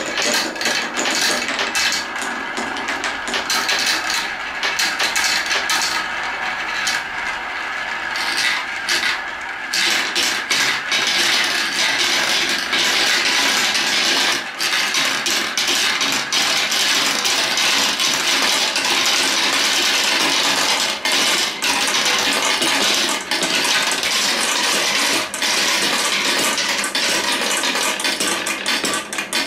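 Marbles rolling and clattering through a marble run, circling a plastic spiral funnel bowl and running along wooden tracks: a steady rolling rush full of small clicks, louder from about ten seconds in.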